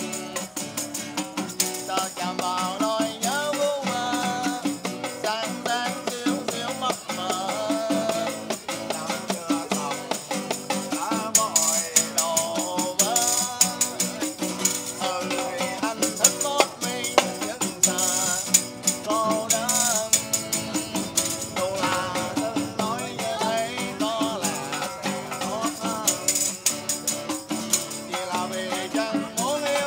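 A man sings to a strummed acoustic guitar while a tambourine is beaten and shaken in steady rhythm.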